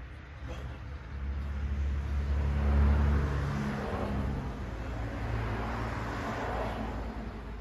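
Road traffic on a street: a car passing close by, its engine hum and tyre noise swelling to a peak about three seconds in, followed by more passing traffic that fades toward the end.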